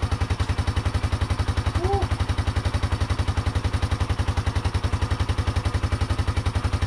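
Yamaha Moto-4 350's single-cylinder four-stroke engine running steadily with a rapid, even exhaust beat. It is the first run of the rebuilt engine, after frayed stator wires at the pulser coil were found to be the cause of its strong spark but no fire.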